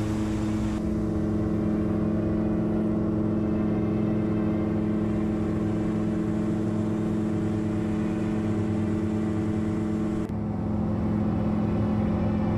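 Steady drone of a lightweight gyroplane's engine and pusher propeller heard from inside the cockpit in flight. Its tone shifts abruptly about a second in and again near the end.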